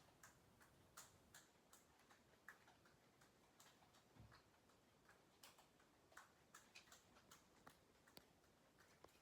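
Near silence: quiet room tone with faint, irregular light ticks, about two or three a second.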